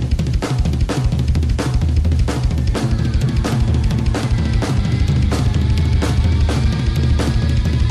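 A band's recorded song playing with a steady drum-kit beat of bass drum, snare and cymbals, about two hits a second, over heavy bass. Held instrument notes join about three seconds in.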